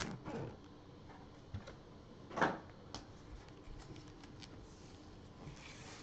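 Trading-card foil packs being handled by gloved hands: faint rustling and clicking, with one louder short crinkle about two and a half seconds in.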